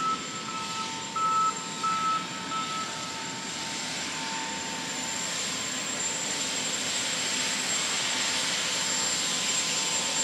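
A vehicle's reversing alarm beeping at a steady pitch, about two beeps a second, for the first three seconds. From about four seconds in, a steady rushing hiss swells up and holds.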